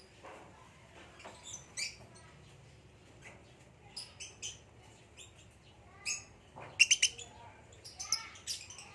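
Lovebirds chirping: short, high-pitched chirps scattered through, with a quick run of loud chirps about seven seconds in.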